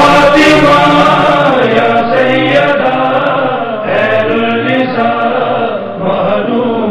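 Voices chanting a noha, a Shia mourning lament, in long held notes that bend slowly in pitch.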